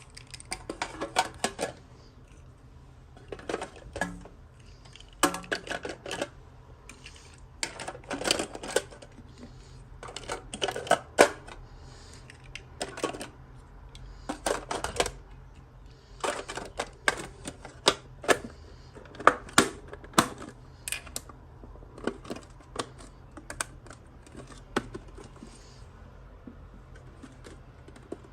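Small plastic toy pieces and packaging handled by hand during an unboxing: irregular clusters of sharp clicks and taps with short pauses between them.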